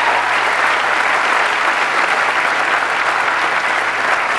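A large seated audience applauding, with many hands clapping together in a steady, dense wash.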